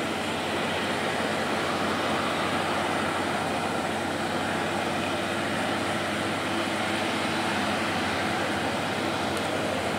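Heavy-haulage Kenworth trucks moving an oversize load: a steady diesel engine drone under a constant wash of noise, with no change in level.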